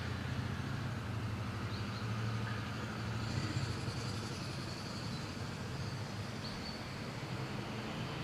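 Ford Thunderbird engine idling steadily in the cold after a hard start. A few faint bird chirps come over the top.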